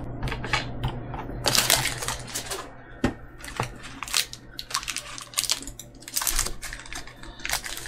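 Magic: The Gathering trading cards being handled and flipped through: a run of irregular light clicks and card slides, with a couple of brief rustles.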